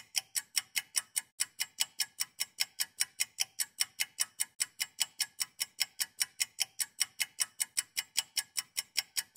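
Ticking-clock sound effect: fast, evenly spaced ticks, about four to five a second, with silence between them, the kind laid under a time-skip title.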